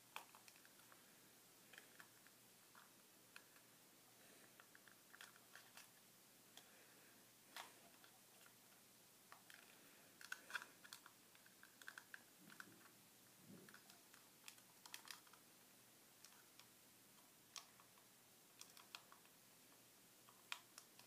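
Faint, irregular clicks and taps of a small clear plastic battery box being handled and pried at as someone tries to open it.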